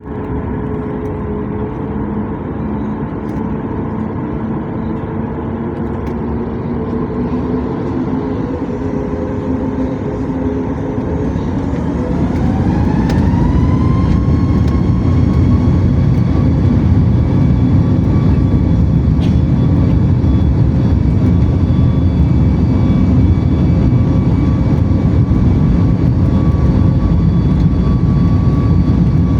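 Boeing 737 MAX's CFM LEAP-1B turbofan engines spooling up for takeoff: a steady rumble with a whine that rises in pitch about eleven to fourteen seconds in, then holds steady as the engines run louder at takeoff thrust.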